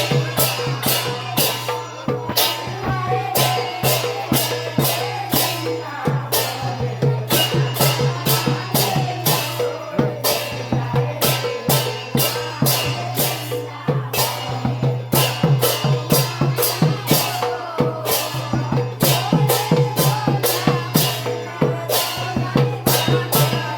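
Sylheti dhamail folk song: a sung melody over a steady percussive beat of about two to three strokes a second.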